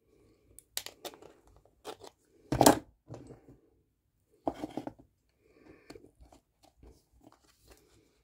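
Hard plastic chainsaw top cover being handled and scraped: scattered clicks and scrapes, the loudest about two and a half seconds in and another near four and a half. The sounds come from cleaning a burr off a freshly drilled vent hole and fitting a small metal air-vent disc into the cover.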